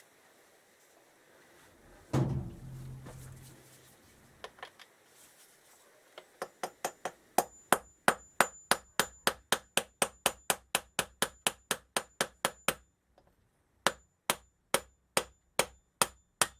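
Hammer tapping a drift against the Kawasaki Z650 engine's secondary shaft to drive it out through its bearings: a run of sharp, ringing metal-on-metal taps, about four a second, with a short pause before the tapping resumes a little slower. One heavier knock comes about two seconds in.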